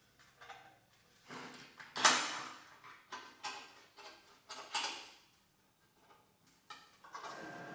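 Metal parts handled and set down in a workshop: irregular metallic clanks and knocks, the loudest about two seconds in. Near the end a steady hum with a thin high whine starts up.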